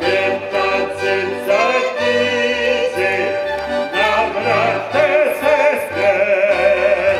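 Live folk band playing: a woman singing with wide vibrato over violin and accordion, with a low bass line pulsing about twice a second.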